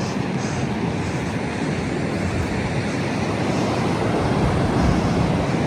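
Ocean surf washing in as a steady rush, with wind buffeting the microphone; it swells slightly near the end.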